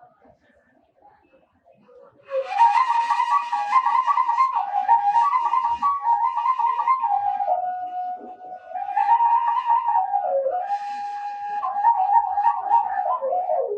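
Washint, the Ethiopian end-blown bamboo flute, playing a solo melody with a breathy tone. It comes in after about two seconds of quiet and runs on in quick trilled ornaments, with a few longer held notes.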